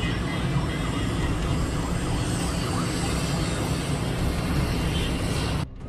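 Steady, loud city traffic noise.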